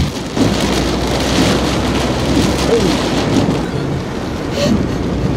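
Heavy rain beating on a moving car's roof and windscreen, heard from inside the cabin, with a low steady rumble underneath.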